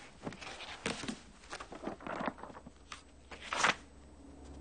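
Paper rustling and small handling noises as the pages of a book are leafed through, with a louder swish of a page about three and a half seconds in.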